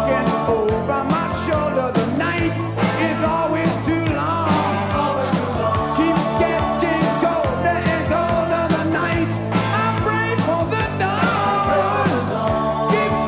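Rock band playing a 1980s rock song: drums keeping a steady beat under bass, electric guitars and keyboards, with a lead melody line bending over the top.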